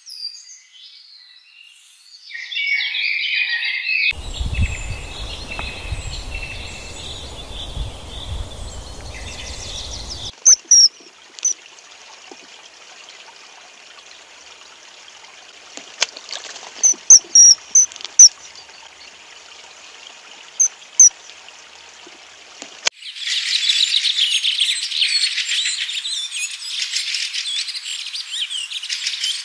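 Birds chirping and calling outdoors in a string of short nature recordings: a few chirps, then a stretch with a low rumble under a high hiss, then sparse sharp chirps, and in the last six seconds a dense, loud chorus of high chirps.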